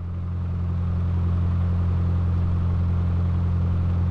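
Cessna light aircraft's piston engine heard from the cockpit as a steady low drone, swelling up over the first second and then holding even.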